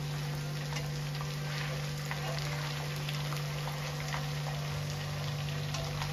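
Marinated fish pieces sizzling and crackling in hot oil in a kadai at the half-fry stage, with scattered sharp pops through a steady hiss. A steady low hum runs underneath.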